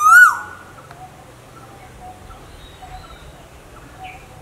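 Asian koel calling: one loud, clear note that rises and then drops, right at the start. Faint short bird notes repeat about twice a second after it.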